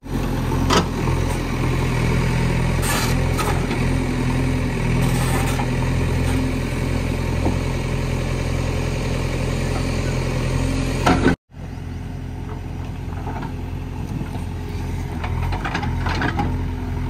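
Diesel engines of earthmoving machinery running steadily under work, with a few sharp knocks and clanks. The sound drops out for an instant about eleven seconds in.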